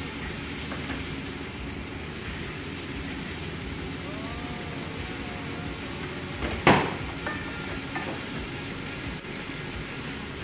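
Food sizzling steadily in hot fat in a frying pan, with one sharp clatter of a metal utensil about two-thirds of the way through.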